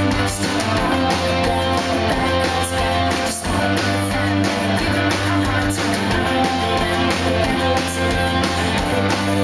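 Live rock band playing through a stage PA, recorded from the crowd: electric guitars strumming over bass and drums, loud and steady.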